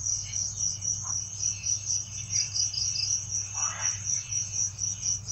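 Night insects chirping in a steady, high-pitched pulse, about three chirps a second.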